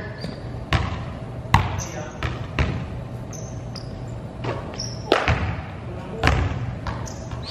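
Basketball bouncing on a hardwood gym floor at an irregular pace, each bounce echoing around the hall, with short high squeaks in between.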